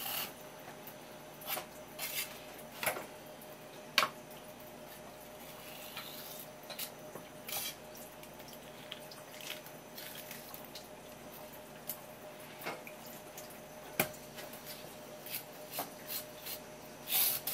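Kitchen knife working through a conger eel on a wooden cutting board: quiet wet, slick sounds of the blade and hands on the fish, broken by scattered sharp knocks of the knife on the board, two of them much louder than the rest.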